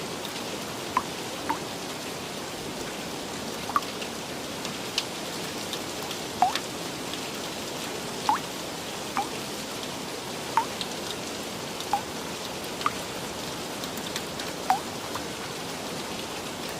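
Steady rain with single drops plinking about once a second, each a short bright ping, over an even hiss of rainfall.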